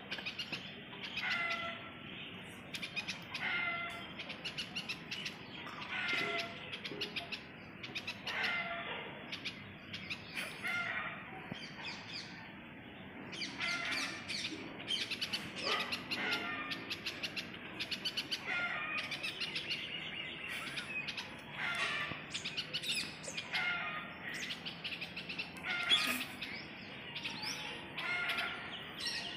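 Birds chirping and calling over and over, short pitched calls recurring every second or two.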